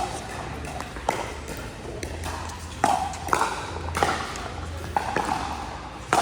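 Pickleball rally: about eight sharp pops of paddles striking the hollow plastic ball, and of the ball bouncing on the court, irregularly spaced from under half a second to nearly two seconds apart.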